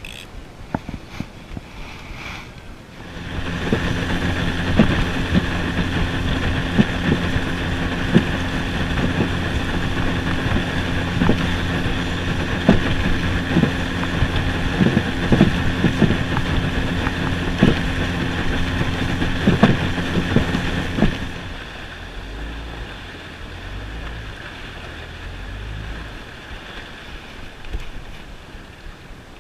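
Small fishing boat's outboard motor running under way, with the hull knocking on the chop and wind on the microphone. The engine comes up about three seconds in and drops away after about twenty seconds, leaving low irregular thuds as the boat coasts.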